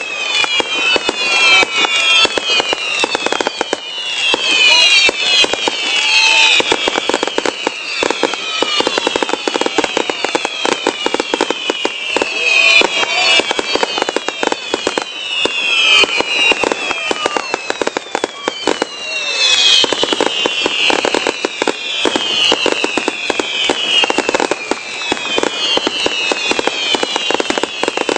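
Fireworks going off in rapid succession: a dense run of bangs and crackling, with many overlapping whistles that fall in pitch one after another.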